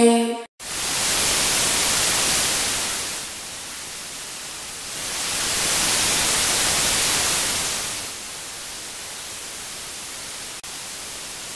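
Television static hiss, swelling louder and dropping back twice, with a brief dropout near the end. Electronic music cuts off just before it begins.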